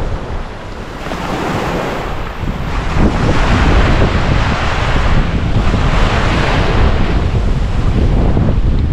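Ocean waves breaking and washing on a beach, with wind buffeting the microphone in a low rumble. The surf grows louder about three seconds in.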